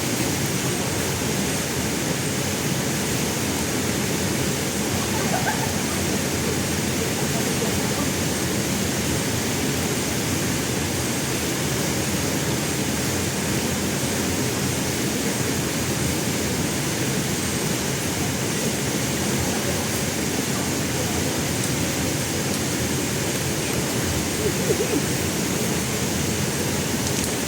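Steady rushing of a jungle waterfall or fast stream, an even unbroken roar of water.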